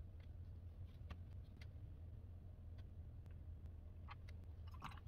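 Faint steady low hum with scattered light ticks and clicks, a small cluster of them near the end.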